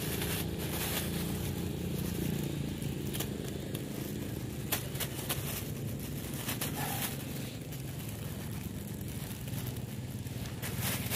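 Thin black plastic bag crinkling and rustling in scattered crackles as it is handled, over a steady low background noise.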